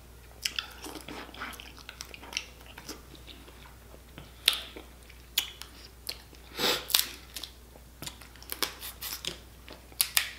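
Close-up eating of sauce-dipped snow crab legs: wet chewing and mouth sounds in irregular bursts, with sharp crackles as crab shell is snapped apart by hand near the end.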